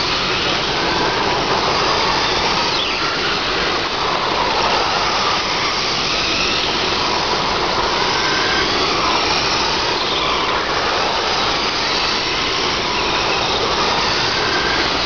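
Radio-controlled race trucks' motors whining together as the trucks lap a dirt oval, several pitches rising and falling as they accelerate down the straights and ease off into the turns.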